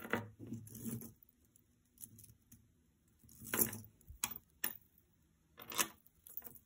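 Light clicks and rattles of costume jewelry being handled: beads and chain clinking in a few short bursts, the loudest about three and a half seconds in.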